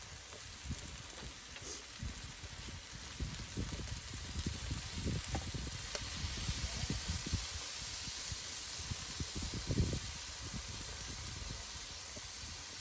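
Pork belly sizzling steadily on a grill over an oak-wood brazier, with irregular soft low thumps underneath.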